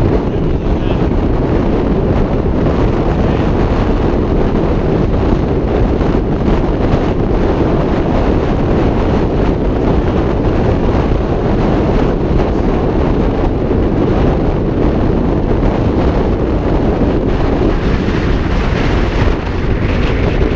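Strong wind buffeting the camera microphone in a steady, heavy rumble, with small surf washing up on a sandy beach underneath.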